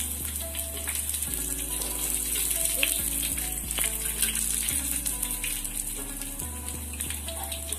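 Chopped shallots, garlic, pandan and curry leaves sizzling in hot oil in a wok, a steady hiss, over background music.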